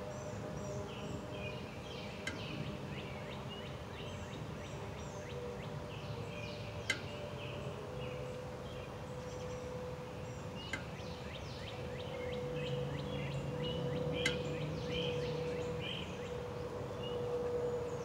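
Songbirds chirping and twittering, with a few sharp single chip notes standing out. A low steady hum runs underneath and grows a little stronger about halfway through.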